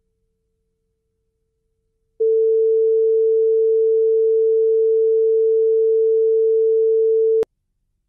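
Colour-bar test tone at the head of a VHS tape: a single steady, mid-pitched sine tone. It is faint at first, jumps to full loudness about two seconds in, and cuts off suddenly with a click near the end.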